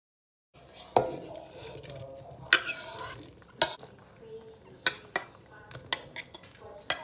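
Stirring in an enameled cast-iron Dutch oven of chicken and dumplings, with a series of sharp clinks and knocks of utensil and bowl against the pot as carrots and shredded chicken are added. It starts about half a second in.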